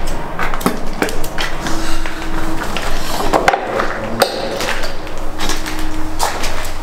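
A rapid, irregular series of knocks, clicks and scrapes over a faint steady low hum.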